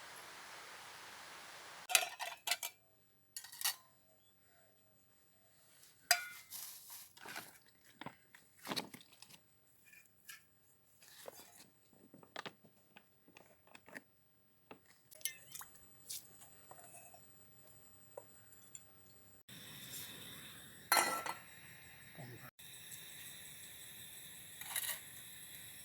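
Irregular clinks and knocks of pots, dishes and utensils being handled. A steady rush of running water is heard for the first two seconds and again over the last six.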